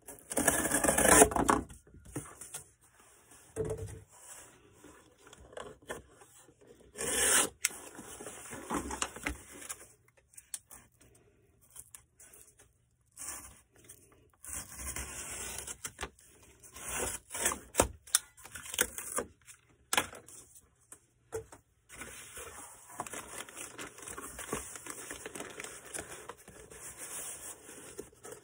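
Cardboard and packing materials being handled: irregular scraping and rubbing with a few sharp knocks, loudest in the first two seconds.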